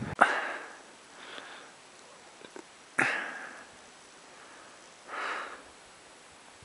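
A climber breathing hard at high altitude close to the microphone: four short rushes of breath, one to two seconds apart, the first and third the sharpest.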